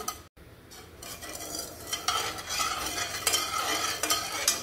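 A stainless-steel slotted spoon stirring sugar and water in a non-stick pan, scraping and now and then tapping against the pan. It is quieter for the first two seconds, then the scraping turns steady.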